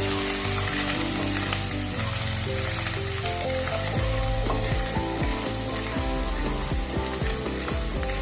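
Chopped ginger and garlic sizzling in hot oil in a kadai, with a spatula stirring and clicking against the pan now and then. Soft background music with held notes plays underneath.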